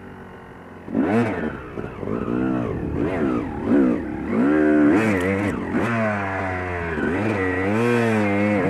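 Yamaha YZ250 two-stroke single-cylinder dirt bike engine ticking over low for about a second. Then it revs in a run of short throttle bursts, the pitch rising and falling again and again as the bike climbs a rocky trail. A few sharp knocks come about five seconds in.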